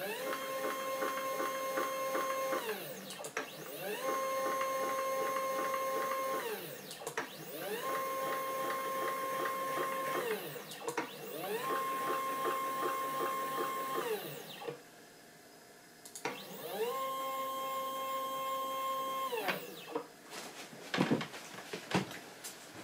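Stepper motors driving the leadscrews of a CNC-converted Proxxon KT150 cross table through repeated axis moves. Each move is a steady whine of about two and a half seconds that rises in pitch as the motor speeds up and falls as it slows to a stop. There are five moves, with a longer pause before the last one, and then a few sharp clicks near the end.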